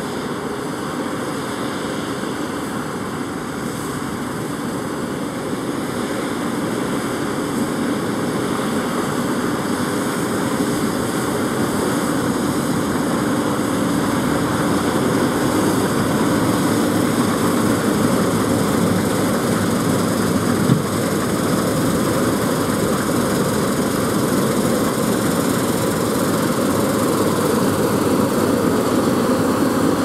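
New Holland CR-series combine harvester running steadily under load as it cuts wheat, a continuous engine and threshing drone that grows gradually louder as the machine draws near. The tractor pulling the grain trailer alongside adds its engine to the drone.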